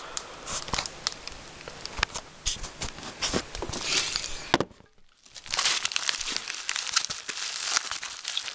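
Crinkling and crackling of packaging being handled and pulled at one-handed while opening a parcel, with many sharp snaps; it stops briefly a little past halfway, then starts again.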